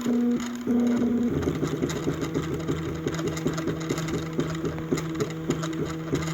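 Stepper motors of a homemade wooden-framed 3D printer running mid-print, humming in pitched tones as the axes move. The tones come in short stop-start segments, change pitch about a second in, then settle into a fast repeating pattern of short moves. The machine is too noisy.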